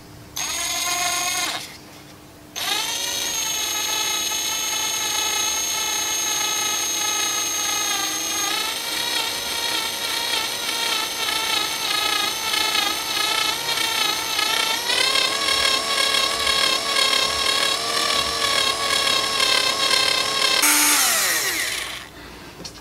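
Cordless drill boring a pin hole through a metal shaft held in a vise: a short first burst, then a long continuous motor whine that shifts pitch a couple of times as the bit cuts, winding down near the end.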